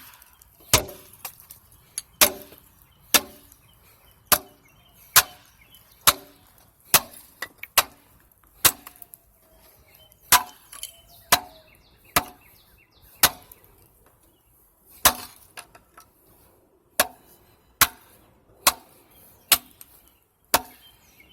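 Repeated hammer blows chipping at the hub of a cast-iron drain pipe to break it off, sharp metallic strikes about once a second with a short pause partway through.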